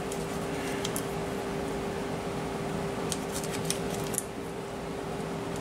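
Paper wrapper of a butter stick crinkling as it is peeled off by hand, in a short rustle about a second in and a cluster of crackles around three to four seconds in. A steady low hum runs underneath.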